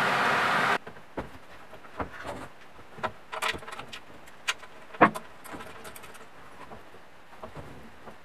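A loud steady hiss cuts off suddenly under a second in. Then come scattered clicks and knocks from hands handling a CNC mill's plastic coolant line and fittings, the loudest about five seconds in.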